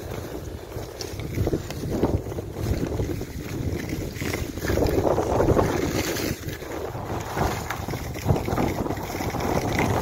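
Wind rushing over the microphone during a downhill ski run, with the skis hissing and scraping over packed snow, swelling and easing in surges.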